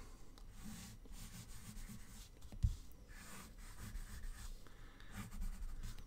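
Pencil scratching on drawing paper in short, irregular strokes as lines are sketched, with a soft thump about two and a half seconds in.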